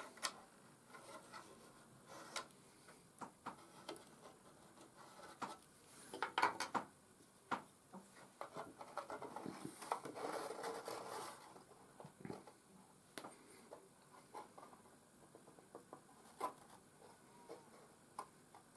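Faint handling of small laser-cut MDF kit parts: scattered light taps and clicks of wood on wood as a cross beam is placed, with a rubbing scrape about ten seconds in as it is slid into its slots.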